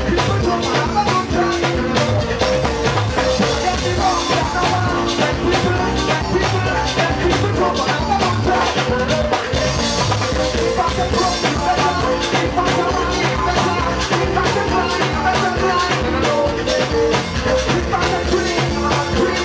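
Band music with a steady drum beat.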